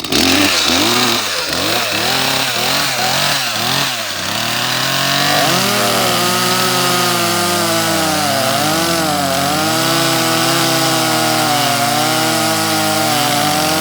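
Two-stroke chainsaw cutting through a log, its engine note repeatedly dipping and recovering as the chain bites and the saw loads up.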